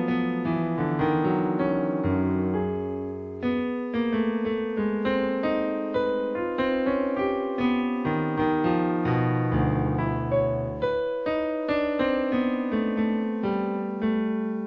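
Piano music: notes and chords struck one after another and left to fade, with a few deep bass notes held for about a second.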